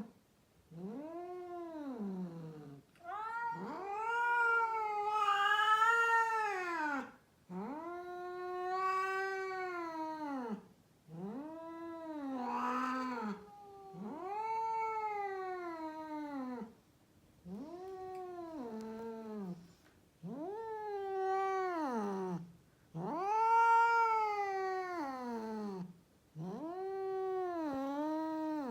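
A female cat caterwauling: about nine long, drawn-out yowls in a row, each rising and then falling in pitch, with brief pauses between them.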